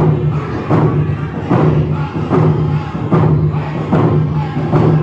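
Round dance song: hand drums beat steadily, about one stroke every 0.8 seconds, under a group of singers holding a chanted melody.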